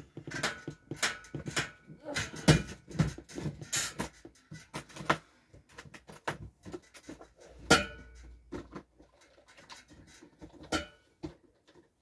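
Rummaging through makeup products and packaging: irregular clicks, knocks and rustling as items are picked up and put down.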